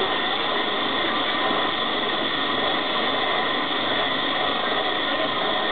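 Electric coconut-scraping machine running steadily: a motor whine over a dense grating noise as a coconut half is pressed against its spinning head and the meat is shredded out of the shell.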